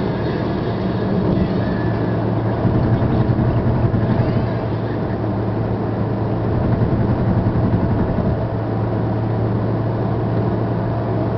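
Car cruising steadily on a highway, heard from inside the cabin: a constant low engine drone mixed with tyre and road noise.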